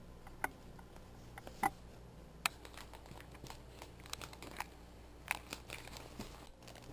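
Faint handling noise: scattered light taps, clicks and rustling, as the dolls and their props are moved about by hand.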